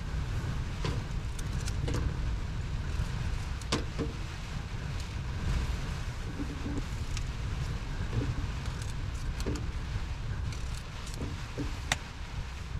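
Knife slicing potatoes over a saucepan, the pieces dropping into the pan with a few sharp knocks spread through, over a steady low rumble.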